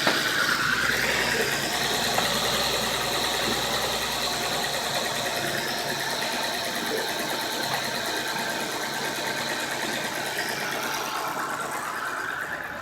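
BMW E60 engine running at a steady idle, now going after having been a no-start. It fades slightly and drops away near the end.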